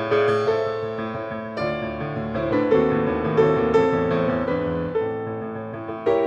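Background music led by piano: sustained chords and melody notes changing every second or so.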